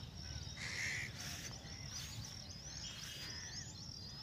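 Small birds chirping, many short high rising chirps with a louder brief call about a second in, over a steady low outdoor rumble.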